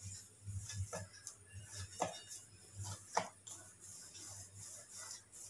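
Three light knocks and clinks of kitchenware being handled, about a second apart, around steel plates and a rolling board.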